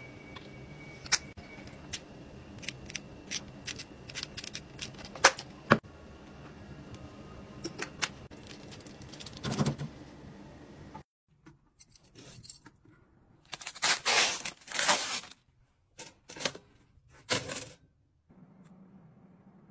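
Kitchen handling sounds: scattered light clicks and taps of dishes and bottles on a stainless steel counter, then after a brief silence several short, louder rustling or scraping bursts.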